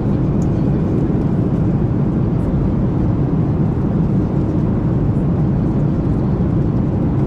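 Steady low rumble and rush of a jet airliner's cabin in cruise flight: engine and airflow noise.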